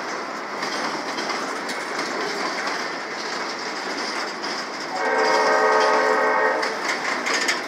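Freight train's boxcars rolling past close by with steady wheel-and-rail noise. About five seconds in, a steady horn tone sounds for under two seconds, louder than the rolling noise.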